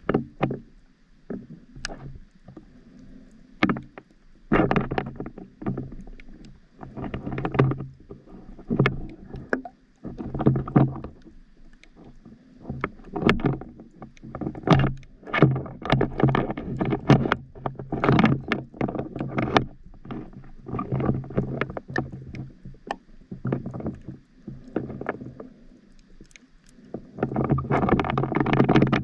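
Scuba diver's breathing through a regulator underwater: bursts of exhaled bubbles, bubbling and crackling, come every few seconds between quieter gaps.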